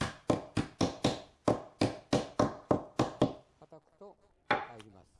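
Light, rapid taps of a flat wooden block on thin kumiko wood pieces, about three to four a second, pushing a small strut fully into its grooves in the base frame. The tapping stops after about three seconds, with a few faint ticks and then a single louder knock near the end.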